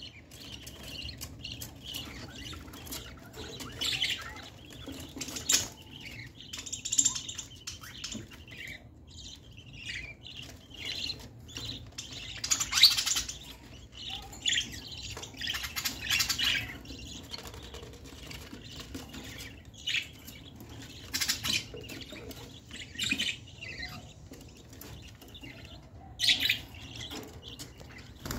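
Budgerigars chirping and chattering in irregular bursts of short, high calls.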